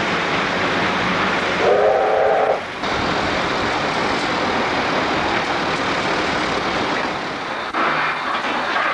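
Cab noise of Victorian Railways R class 4-6-4 steam locomotive R 707 under way: a steady rush of exhaust, steam and running gear, with a short blast on the whistle about two seconds in.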